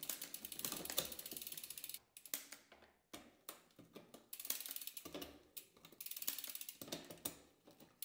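SRAM Eagle 12-speed drivetrain turned by hand on a work stand: the chain runs over the cassette with rapid mechanical clicking while the rear derailleur shifts it across the cogs, pausing briefly twice. The shifts run smoothly now that the B-gap has been corrected.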